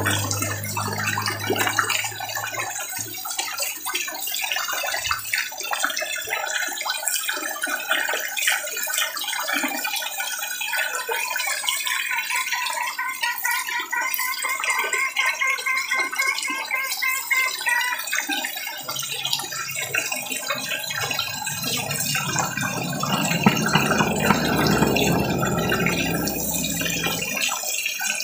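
Dense splashing and slapping of a large school of red tilapia thrashing at the water surface as they feed on pellets. A low rumble joins for several seconds near the end.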